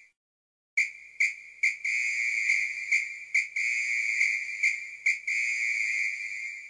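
Steady high whistle-like synthesizer tone in an electronic track's intro, starting about three-quarters of a second in and broken by short clicks roughly twice a second.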